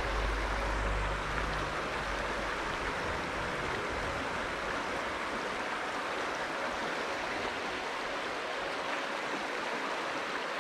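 Steady rush of flowing river water, with a brief low rumble in the first couple of seconds.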